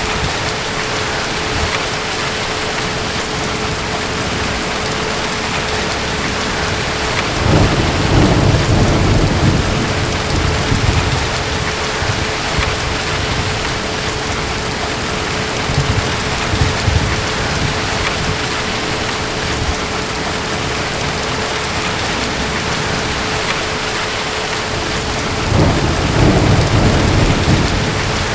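Steady heavy rain with distant thunder rumbling twice, once about eight seconds in and again near the end.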